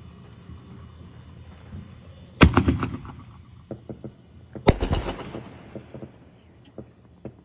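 Consumer fireworks going off: two sharp bangs about two seconds apart, each followed by a trail of crackling pops, then scattered smaller pops.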